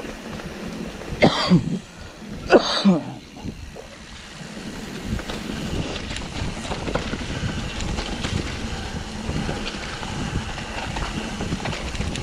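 Two short loud vocal sounds from a rider, coughs or shouts, about one and two and a half seconds in. Then a mountain bike rolling over rough trail: steady tyre rumble with many small rattling ticks.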